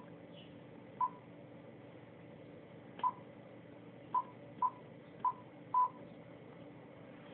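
Icom IC-9100 transceiver's key beeps as its front-panel buttons are pressed: six short beeps, all at the same pitch, at uneven intervals, the last a little longer.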